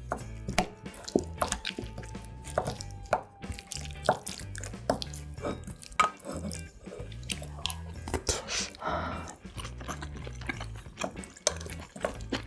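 Close-miked eating sounds: many short wet clicks and smacks of chewing, with a longer noisy mouthful about eight seconds in, over background music with a repeating bass line.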